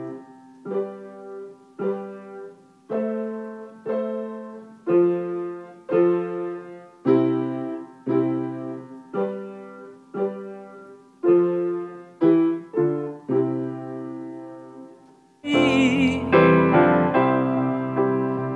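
Upright piano played in slow chords, about one a second, each left to ring and fade. About fifteen seconds in it stops and louder recorded music with singing comes in.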